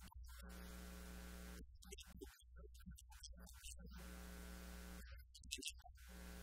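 Faint, steady electrical mains hum, with a buzzier hissing layer that cuts in and out three times. No speech is heard.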